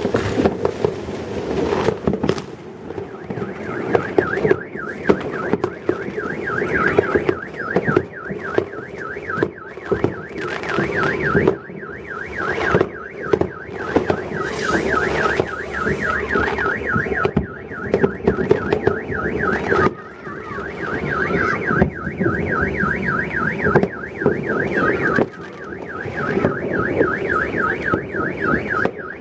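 A car alarm sounding a fast warbling siren tone from a few seconds in, over repeated firework bangs and crackles.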